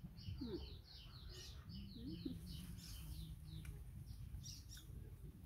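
A small bird chirping in a quick run of short, high notes, about three a second, then a couple more chirps near the end.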